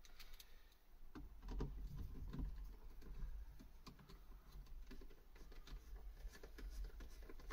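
Light, irregular clicks and small scrapes of hand work inside a car door: a screwdriver and fingers on the door speaker and its plastic wiring connectors, over a low rumble.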